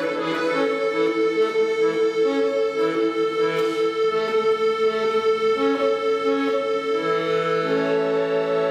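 Piano accordion playing a melody in the right hand over a long held middle note. Bass notes and fuller chords come in about seven seconds in.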